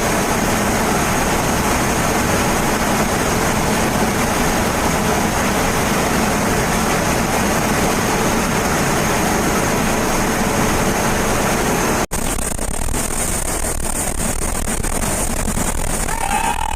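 Aircraft engine and rushing wind noise, steady and loud. About twelve seconds in there is an abrupt cut to a similar rushing noise with a thin high whine.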